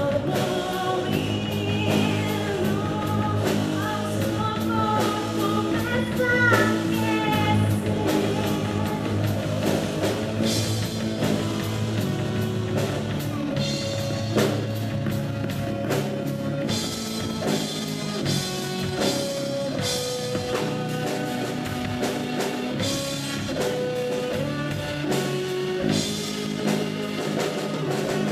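Live rock band playing: a woman singing over electric guitar, keyboard and drum kit. The cymbals come in louder about ten seconds in.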